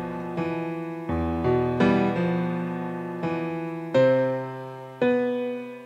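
Background piano music: chords struck about once a second and left to ring out.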